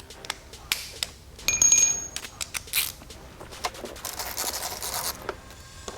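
Hand tools working small screws out of a motorcycle's plastic body panel: scattered clicks and light scraping, with a brief high-pitched whir about a second and a half in and a scratchy rasp around four to five seconds in.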